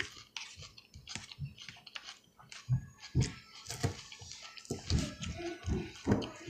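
Close-up chewing of salad: irregular crisp crunches, clicks and mouth smacks, several a second.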